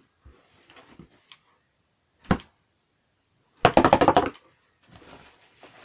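Cardboard box and its packing being handled as the contents are pulled out: light rustling, a sharp knock about two seconds in, then a loud rapid crackling rattle lasting under a second, past the middle.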